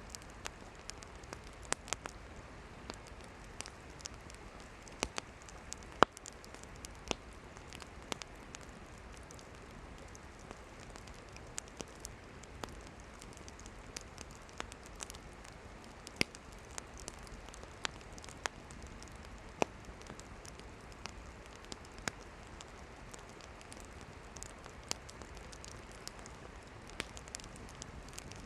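Wood campfire burning: a steady hiss with irregular sharp crackles and pops of the firewood, the loudest about six seconds in.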